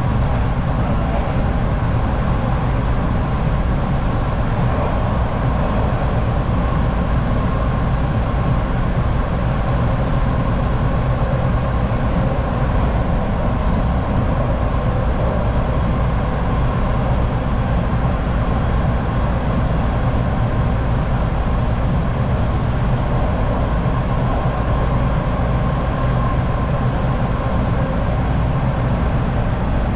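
TTC subway train running steadily between stations: a constant low rumble with wheel-on-rail noise and faint steady tones, heard from inside the car.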